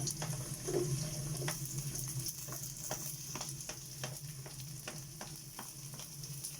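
Garlic and onion sautéing in hot oil in a pan, sizzling steadily, with a spatula stirring and clicking against the pan a couple of times a second.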